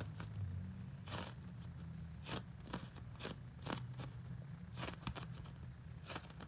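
Hands handling crinkly craft material, making a dozen or so short, irregularly spaced rustles and crinkles over a faint low hum.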